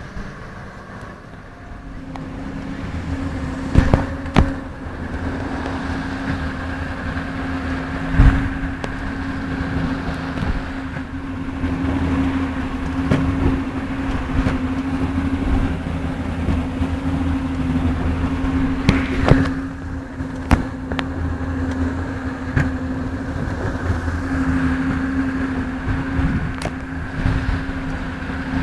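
Boat engine running steadily underway with an even hum, over the rush of water from the wake. A few sharp knocks cut through it, the loudest about eight seconds in.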